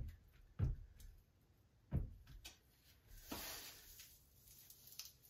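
Quiet handling of a mosaic tile sheet being pressed into thinset on a wall with a grout float and by hand: three soft knocks in the first two seconds, then a short rub a little over three seconds in.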